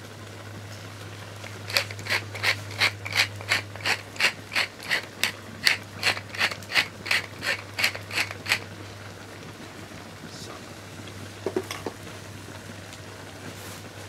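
Wooden pepper mill being twisted to grind pepper: a run of about twenty rhythmic grinding clicks, roughly three a second, stopping after about seven seconds. A couple of soft knocks follow a few seconds later.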